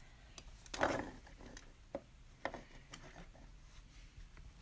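A few light clicks and knocks of small objects being handled, the loudest about a second in.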